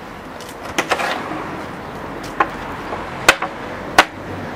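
Sharp knocks of a tool striking a wooden spoked cart wheel at its hub: a quick pair about a second in, then three single, unevenly spaced blows, the last two the loudest.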